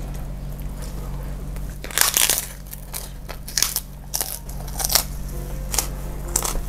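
Close-miked crunching of a crisp kerupuk cracker being bitten and chewed, in several sharp crunches starting about two seconds in, over a low steady electrical hum.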